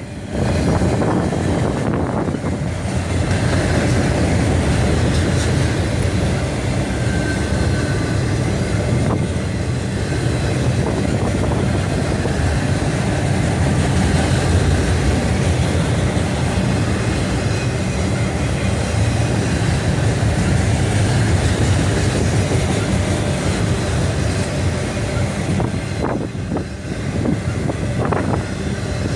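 A train rolling past: a steady, loud, mostly low-pitched noise of its wheels and cars on the rails. It dips briefly near the end.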